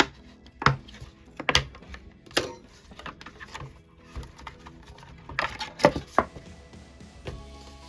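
Sharp, irregular clicks and knocks of hard plastic parts and a hand tool being handled while a Bluetooth speaker's fabric cover is unfastened and pulled off, with quiet background music.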